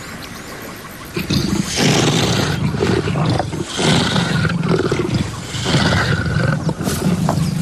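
Lioness growling in three long, loud bouts, starting about a second in.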